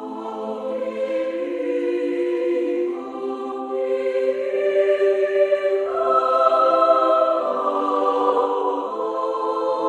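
Background music: a choir singing slow, sustained chords that change every few seconds, in the manner of church chant.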